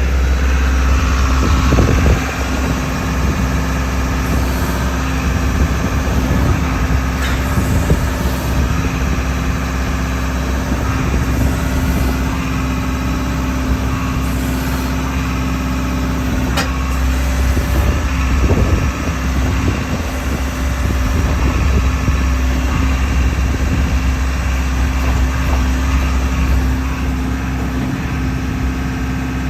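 JCB JS160LC tracked excavator's diesel engine running steadily, with a constant low hum and one sharp click about sixteen seconds in.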